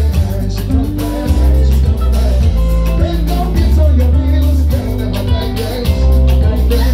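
Live band playing an upbeat song: several singers on microphones over a drum kit and a deep bass line, amplified through PA speakers.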